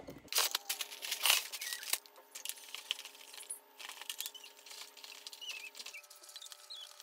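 Clicks, clacks and rattles of a metal-edged cosmetic case with fold-out trays being handled and opened out, its trays and hardware knocking; busiest in the first two seconds, then scattered clicks.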